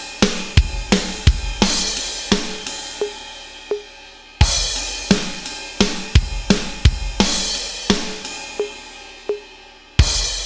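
Electronic drum kit played alone: a steady rock beat on kick, snare and hi-hat at about 86 beats a minute, with a crash cymbal hit about four seconds in. Near the end a final crash with kick closes the song and rings out.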